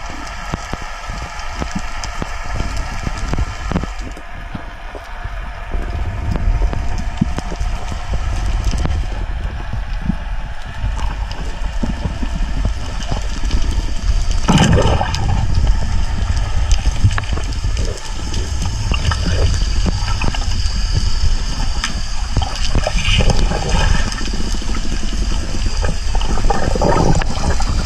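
Sea water sloshing and splashing, continuous, with a heavy low rumble underneath.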